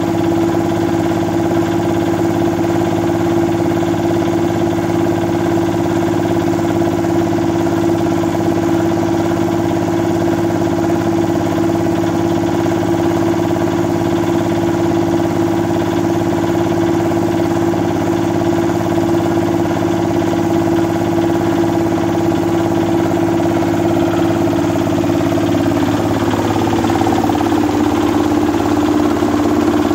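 Old 8 hp diesel engine running steadily while driving a rice mill, a constant loud hum. Its note shifts slightly near the end.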